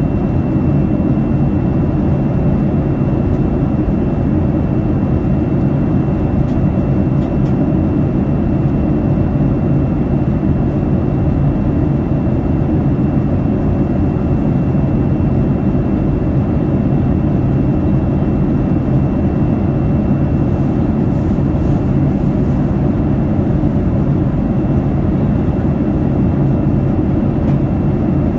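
Steady cabin noise inside a Boeing 787 Dreamliner in flight: engine and airflow noise, strongest in the low range, with a faint steady high tone above it.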